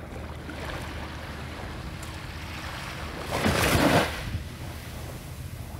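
A small wave washes in and splashes against the shoreline, a rushing splash lasting about a second a little past midway, over steady lapping water and a low steady hum.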